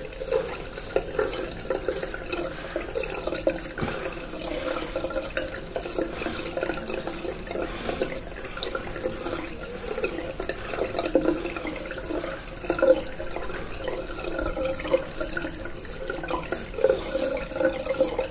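Double-edge safety razor scraping through lathered stubble in short, irregular strokes, with a steady hum behind it.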